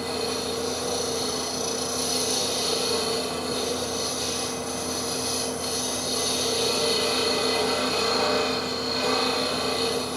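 Wood lathe running with a steady motor hum while the spinning maple burl bowl is worked, wood rubbing against the tool.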